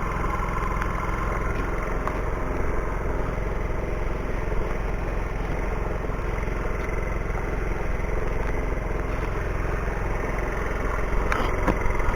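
Car engine and road noise heard from inside the cabin through a dashcam's microphone, steady, with a few faint clicks near the end.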